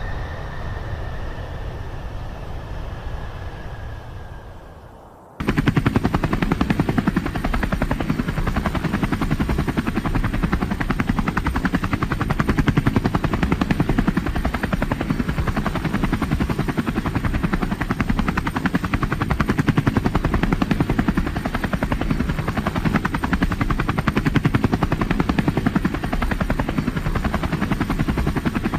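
A vehicle sound with a thin steady whine fades out over the first five seconds, then cuts abruptly to a helicopter's rotor, a rapid, steady chopping.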